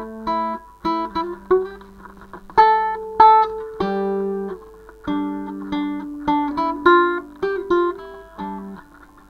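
Tudor guitar break: a solo Renaissance-style guitar playing a run of plucked notes and chords, each ringing on briefly before the next.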